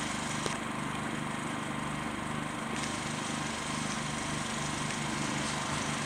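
A small engine running steadily, with an even hum.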